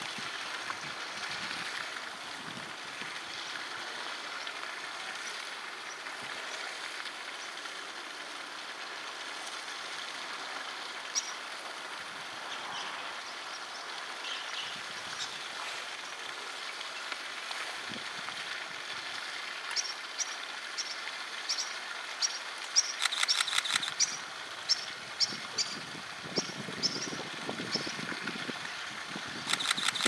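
Steady rush of flowing water. In the second half come a run of short, high ticks about twice a second and two brief, rapid clicking rattles, one a few seconds after the ticks begin and one near the end.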